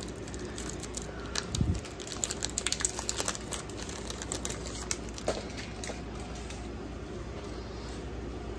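Foil trading-card booster pack wrapper crinkling and crackling as it is torn open and handled, with a dull bump about one and a half seconds in. The crackling thins out after about five seconds as the cards are drawn out.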